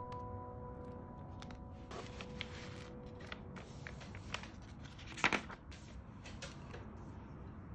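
Soft rustling and small clicks of paper and a plastic sleeve being handled on a craft table, with a louder rustle about five seconds in. A held note from the background music fades out in the first two seconds.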